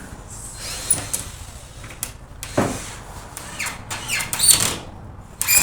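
Workshop handling noises: a few sharp knocks and clicks, then scraping and rasping sounds, of boards and tools being moved on workbenches.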